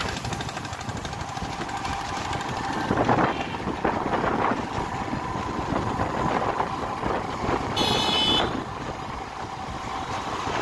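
Riding noise from a small road vehicle: a steady motor hum with road and wind noise. About eight seconds in, a short high-pitched beep sounds.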